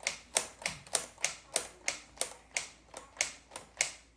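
A typewriter built from Lego bricks clacking as it types, a steady run of sharp plastic strikes at about three a second.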